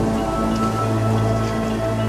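Background music: sustained, held chords with a light crackling patter underneath.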